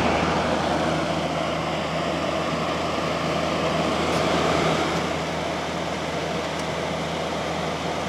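General Electric 8000 BTU window air conditioner (model AEW08LQQ1) running: a steady rush of fan air with a low hum underneath.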